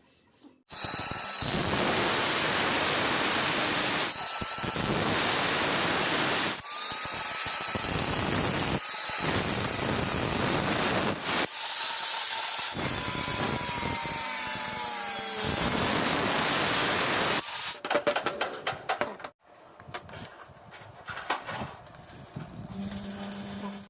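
Handheld electric power tool running hard on iron in bursts, its pitch sagging now and then under load. About three-quarters of the way through it stops, and irregular clicks and crackles follow.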